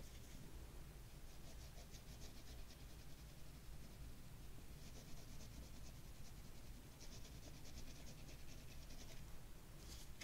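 Oil pastel stick scribbling on black drawing paper in quick back-and-forth strokes: a faint dry scratching in three spells of about two seconds each, with a short last stroke near the end.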